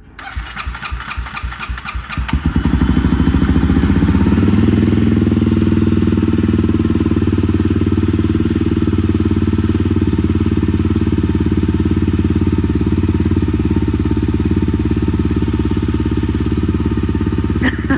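Honda CRF250L's single-cylinder engine cranking on the electric starter for about two seconds, then catching and settling into a steady idle. It is turning over on a freshly fitted Dynavolt gel battery.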